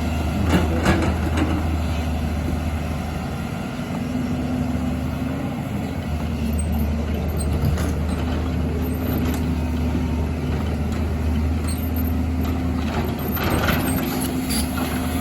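Excavator's diesel engine running steadily, with a few short metallic knocks over it.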